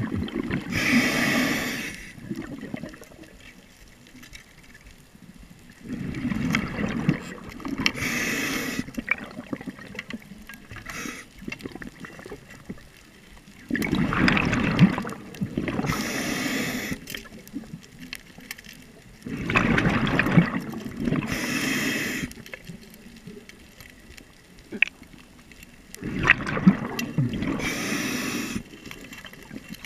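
Scuba diver breathing through a regulator, heard underwater through the camera housing: five breaths about six seconds apart, each a surge of exhaled bubbles gurgling together with the hiss of the regulator, quieter between breaths.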